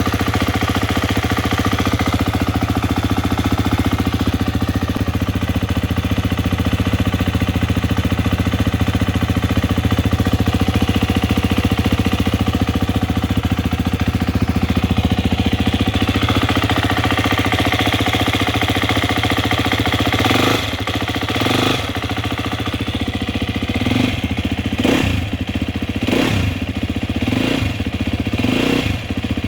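2018 Husqvarna FE 250's four-stroke single-cylinder engine idling steadily, with an abnormal mechanical noise that the owner takes to come, probably, from the timing gear. About two-thirds of the way through, the throttle is blipped in short revs about once a second.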